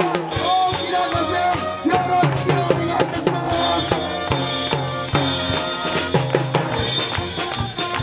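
A brass cheering band plays a fast tune over a drum kit, with dense snare, bass drum and cymbal strokes driving under the brass melody.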